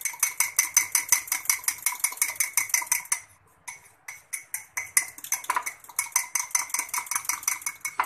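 Metal spoon beating chocolate mug-cake batter in a ceramic mug: rapid clinks of the spoon against the mug, about seven a second, with a short break a little after three seconds in.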